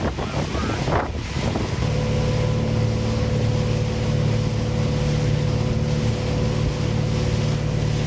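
Boat engine running with a steady drone that sets in about two seconds in, over wind buffeting the microphone.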